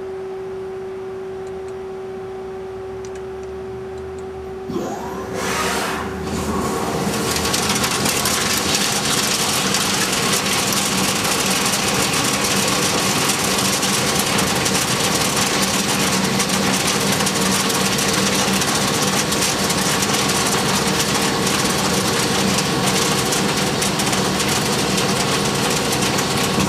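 CyberTec UltraTurn UT250 CNC lathe drilling steel with a 1.825-inch insert drill under flood coolant. A steady spindle hum runs alone for about five seconds, then the coolant and the cut come in as a loud, steady hiss over the hum.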